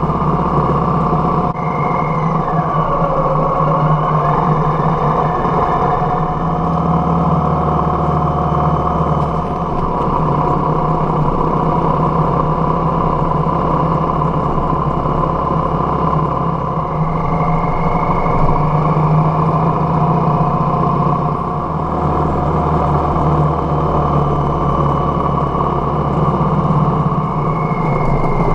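Harley-Davidson Softail Heritage V-twin engine running steadily at road speed, heard from the bike itself.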